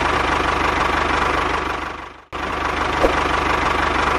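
A tractor-style engine running steadily with a fast low pulse. It fades out about two seconds in and starts again abruptly at the same level.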